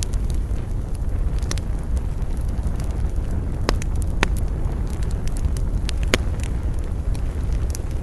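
Bonfire burning, with a steady low rumble under irregular sharp crackles and pops. The loudest pops come a few seconds in.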